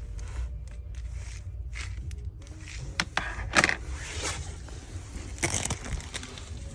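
Scraping and clicking handling noises, loudest about halfway through and again near the end, over a steady low rumble.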